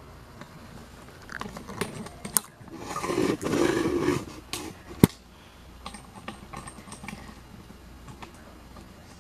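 Handling noise while a camera is being moved and re-angled: light scattered clicks and knocks, a rustling swell about three seconds in, and one sharp click about five seconds in.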